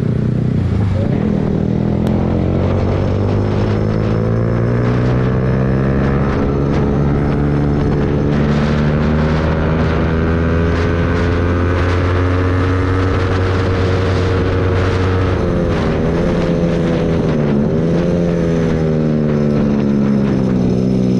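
Yamaha MT-15's single-cylinder engine running through an aftermarket Akrapovic exhaust with its dB killer removed, heard from the bike under way. The engine note climbs slowly and steadily, dips twice a little past halfway as the throttle is eased or a gear is changed, then picks up again.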